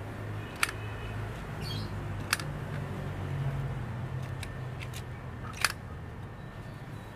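Sharp plastic clicks from a spring-loaded robot-arm lollipop-holder toy as its arm swings out and folds back and its dome opens and shuts: three loud clicks and a few fainter ticks over a steady low hum.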